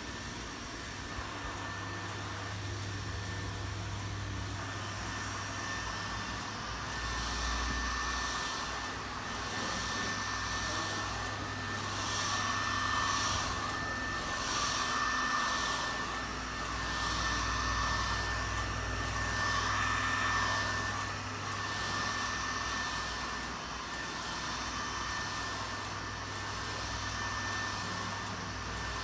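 Goldprint GPUV6090 UV flatbed printer running: a steady low hum under a thin, steady high whine, with a whooshing that swells and fades every two to three seconds as the print head carriage travels back and forth.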